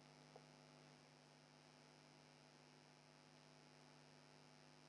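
Near silence with a faint steady hum.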